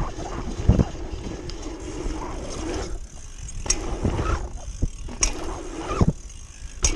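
Mountain bike ridden fast down a dirt-jump track: tyres rolling and rumbling over packed dirt with wind rush on the microphone, broken by several sharp knocks as the bike hits bumps and lands jumps.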